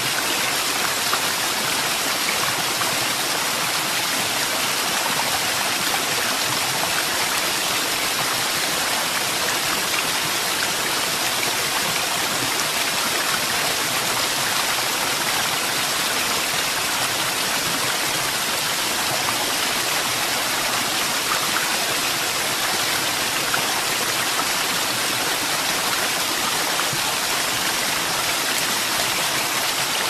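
Shakuransky waterfall pouring into its pool: a steady, even rush of falling water.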